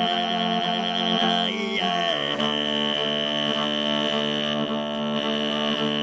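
Traditional Mongolian chant: a low held drone with a strong high tone sustained above it. The high tone wavers at first, and the drone shifts in pitch about two seconds in.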